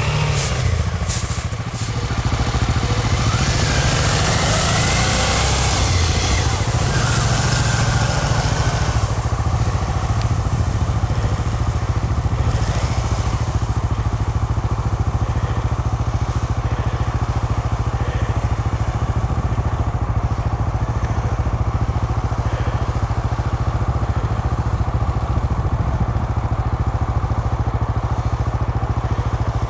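Motorcycle engine running steadily, a constant low drone. In the first few seconds there are some sliding pitch changes and a brief rush of hiss, after which the drone holds even.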